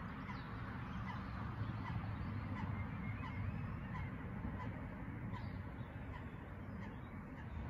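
Geese calling with short, faint honks now and then, over a low steady rumble.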